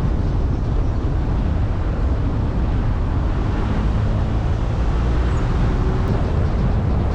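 Steady low rumble of a car's engine and tyres heard from inside the moving car.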